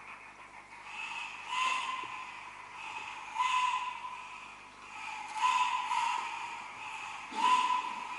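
An ancient Mexican-style wind whistle (resonator) blown in four short blasts about two seconds apart. Each blast is a breathy hiss over a steady whistling tone, and the last is the loudest.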